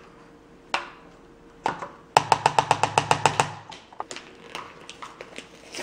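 Kitchen utensils and food packaging being handled: a couple of single knocks, then a rapid run of about a dozen sharp taps lasting just over a second, then light scattered clicks.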